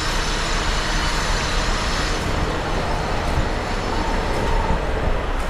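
Semi truck's diesel engine idling in an enclosed loading-dock bay: a steady rumble with a broad hiss over it.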